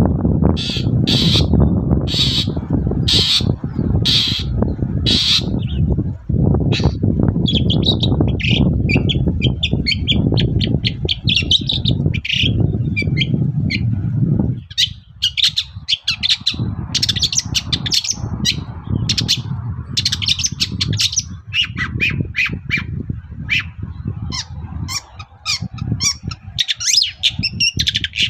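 Long-tailed shrike (cendet) singing vigorously: a series of short calls about once a second, then a fast, dense chattering song. A low rumbling noise runs underneath and stops about halfway.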